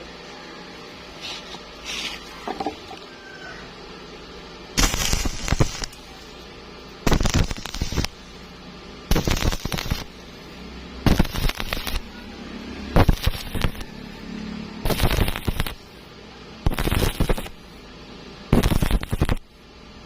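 Electric arc welding in short stitches: eight crackling, sputtering bursts of about a second each, about two seconds apart, starting about five seconds in.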